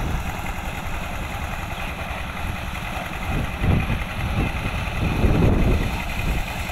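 Small diesel engine running steadily while belt-driving a tubewell water pump, over the gush of water pouring from the outlet pipe into a concrete tank. A couple of louder swells of splashing come through in the middle.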